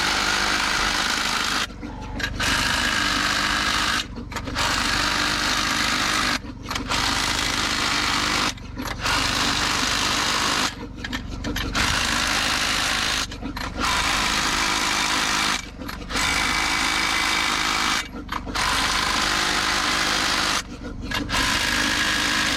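A power tool run in about ten bursts of roughly two seconds each, with short breaks between them, over a steady low hum.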